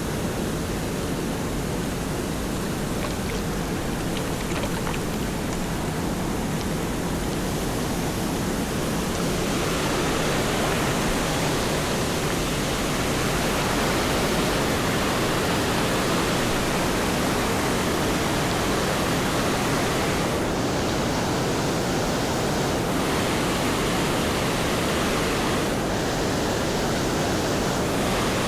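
Waterfall rushing steadily with no break. About a third of the way in, the sound turns brighter and a little louder.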